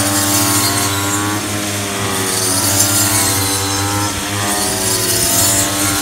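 Petrol brush cutter engine running steadily at working speed, its pitch dipping and rising a little as the blade cuts through standing rice stalks.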